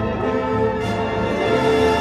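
High school symphonic band playing loud, sustained chords together, the held notes shifting a couple of times.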